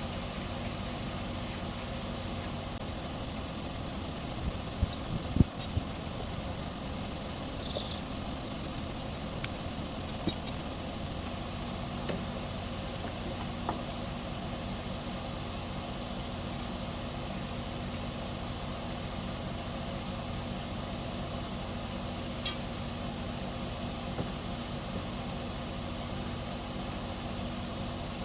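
An engine running steadily, with a few sharp knocks and clicks over it, the loudest about five seconds in and another near twenty-two seconds.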